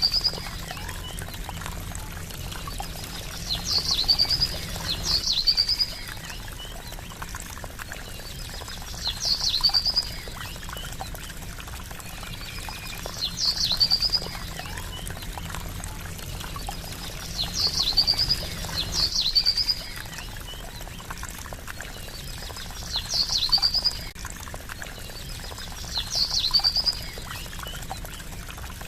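Gently trickling water with a small bird's short high call repeating every four to five seconds, sometimes twice in quick succession, each call ending in a quick trill.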